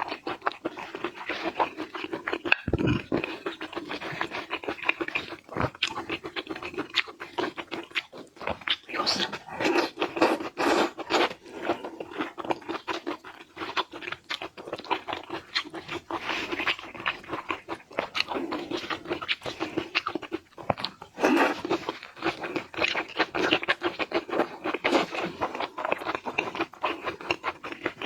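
Close-up eating sounds: chewing and crunching seafood, a dense, irregular run of crunches and mouth noises.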